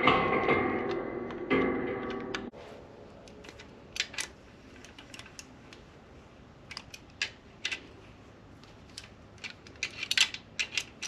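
Background music cuts off about two and a half seconds in. After that, scattered sharp metallic clicks and taps as a T-handle socket driver is worked on a connecting-rod bolt in a Honda K24 aluminium engine block, with a small cluster of clicks near the end.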